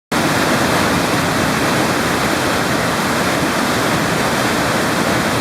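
Waterfall rushing: a loud, steady roar of falling water with no change in level.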